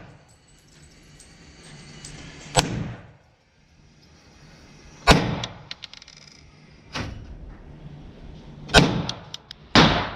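Five gunshots fired a second or two apart at a shooting range, sharp cracks with a short echo, the one near the middle the loudest.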